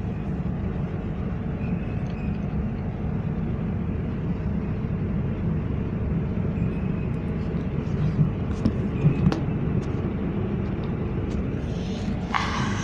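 EN57AL electric multiple unit giving a steady low rumble, with a few faint clicks about eight to nine seconds in.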